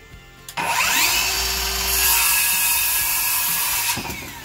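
Cordless circular saw spinning up with a rising whine about half a second in, cutting through a wooden board, then winding down with a falling whine near the end.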